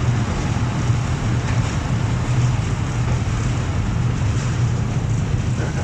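Diesel locomotive idling, a steady low hum, with wind buffeting the microphone.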